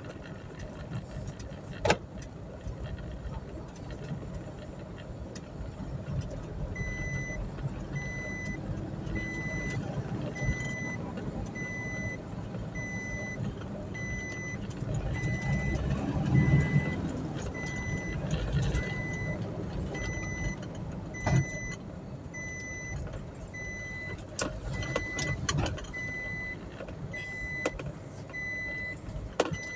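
Vehicle cabin with a steady low road-and-engine rumble. From about seven seconds in, a high electronic warning beep repeats about once a second. A few sharp clicks or knocks sound, one about two seconds in and a cluster near the end.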